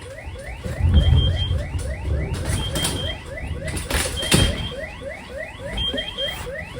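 Electronic alarm sounding: quick rising chirps repeat about four times a second, with a short high beep roughly every second and a half. A few knocks and a low rumble sound underneath.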